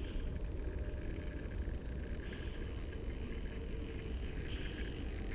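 Steady low rumble of wind buffeting the camera microphone over choppy water.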